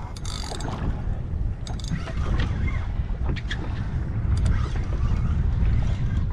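Wind buffeting the microphone on a small boat at sea, with water against the hull and a few short knocks or clicks.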